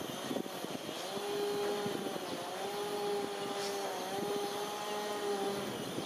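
A steady, pitched engine hum holding one note, with slight dips in pitch, starting about a second in and fading out just before the end.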